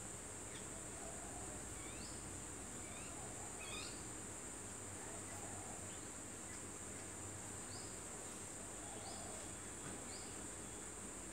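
Steady high-pitched insect chorus, like crickets, with short bird chirps, many sweeping upward, repeating about once every second or two.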